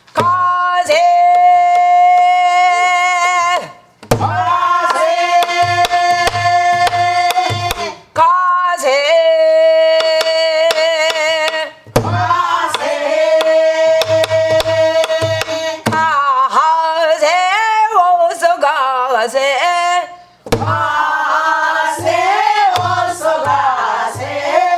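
Namdo folk song sung in long, wavering held notes, in phrases of about four seconds with short breaths between, over strokes on a buk barrel drum keeping the semachi rhythm.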